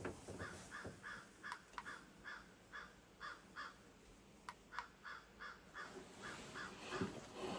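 Crows cawing in a long, even series of short calls, about three a second, with a few sharp clicks among them.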